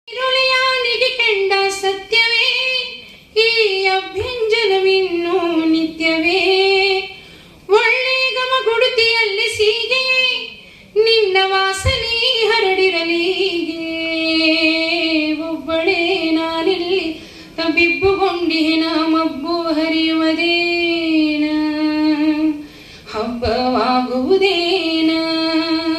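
A solo female voice singing in Hindustani style into a microphone: long, ornamented melodic phrases with gliding pitch and long held notes, separated by short breaths.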